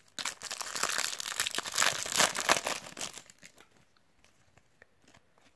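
Panini FIFA 365 card packet crinkling and tearing as it is ripped open by hand, a dense crackle for about three seconds. It is followed by a few faint clicks as the cards are handled.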